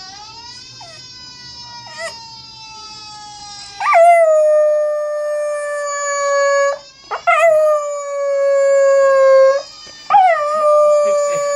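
A fire truck siren wails faintly for the first few seconds. Then a dog howls along loudly: three long howls, each scooping up at the start, then held and slowly falling, with short breaks between.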